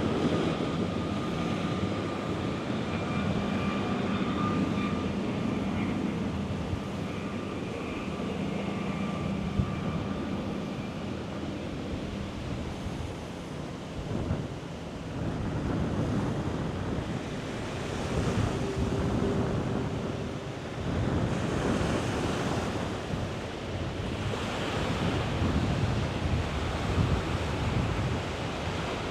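Wind rushing over the microphone, with a steady low hum of a motor during the first dozen seconds that then fades out.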